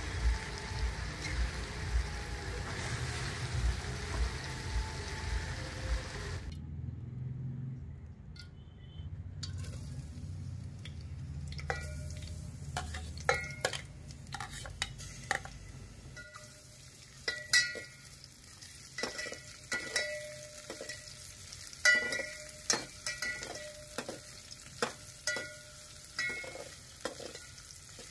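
A steady rushing noise for about the first six seconds, then sliced onions sizzling in oil in an aluminium pot. A steel ladle stirs them, clinking and scraping against the sides of the pot many times.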